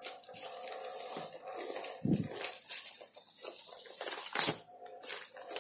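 Plastic packaging of cross-stitch kits rustling and crinkling irregularly as a hand sorts through a pile of them, with a sharper crinkle about four and a half seconds in.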